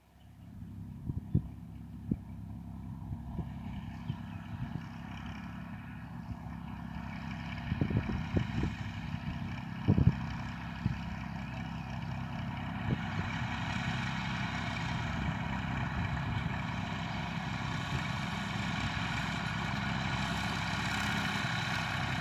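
Massey Ferguson 135 tractor engine running steadily, growing louder as the tractor draws nearer. A few sharp knocks stand out in the first half, the loudest about ten seconds in.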